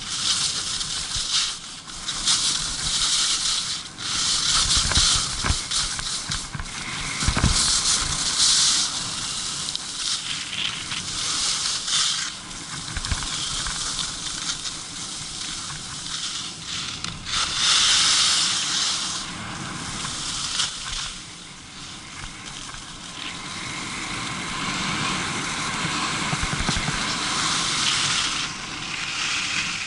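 Skis hissing and scraping over packed snow during a fast descent, the hiss swelling in surges as the skier turns. Low rumbles of wind buffeting the microphone come and go underneath.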